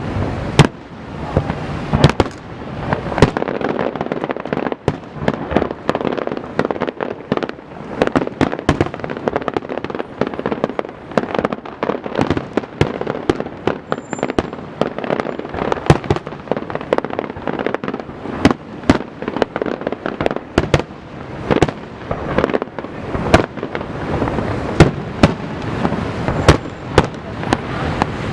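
Aerial fireworks display: a rapid, continuous run of shell bursts and bangs, several a second, over a rolling rumble and crackle.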